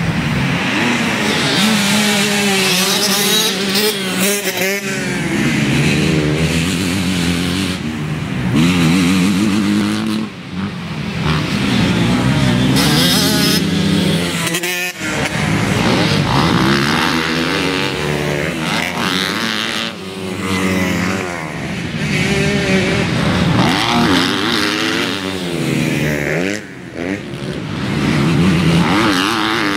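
Motocross dirt bike engines revving hard, their pitch climbing and dropping again and again as the riders accelerate, shift and back off over the jump.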